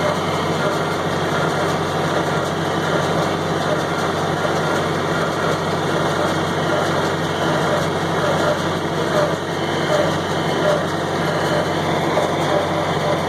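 John Deere 4020 tractor running steadily while pulling a John Deere 327 small square baler that is baling hay.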